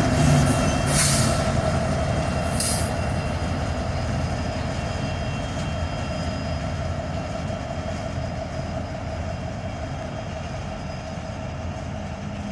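Train rolling past on the track: a steady rumble of wheels on rails with thin whining tones over it, slowly fading. Two short hisses come about one and three seconds in.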